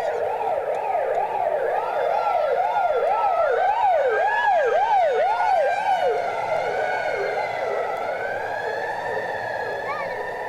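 Siren with a fast rising-and-falling yelp, about two cycles a second. It is loudest around four seconds in, then fades as the yelp gives way to a slower wavering wail.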